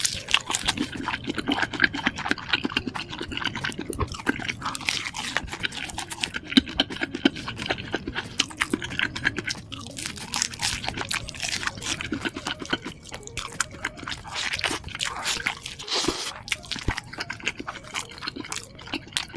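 Close-miked chewing and crunching of a breaded chicken nugget dipped in cheese sauce, with many quick wet, sticky mouth clicks.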